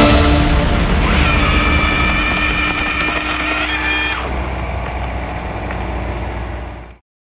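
A machine's engine running steadily with a held tone. About four seconds in the sound thins, then fades and cuts off shortly before the end.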